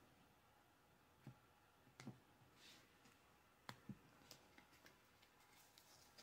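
Faint scattered clicks and a soft rustle of a deck of reading cards being spread and picked through by hand on a board, in a near-silent room.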